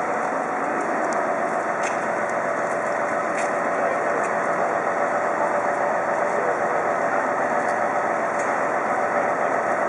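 Crane truck's diesel engine running steadily while its loading crane works, with a couple of faint clicks.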